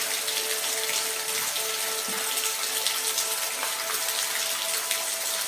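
Steady rain: a dense, even hiss of falling drops with scattered sharper drop ticks. Faint held tones sit beneath it.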